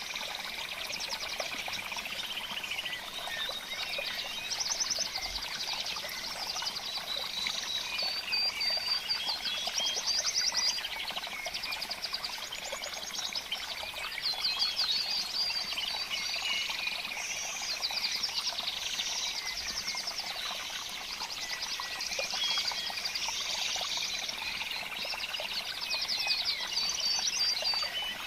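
Many small birds chirping and trilling over one another in a dense, continuous high-pitched chorus, with rapid trills coming and going every few seconds.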